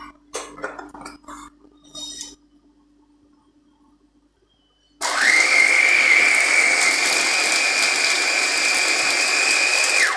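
Plastic clicks and knocks as the lid and motor head are fitted onto a Sunny electric mini chopper, then about halfway through its motor starts with a rising whine and runs steadily, grinding mint, coriander, green chilies and yogurt into chutney. The motor cuts out at the very end as the button is let go.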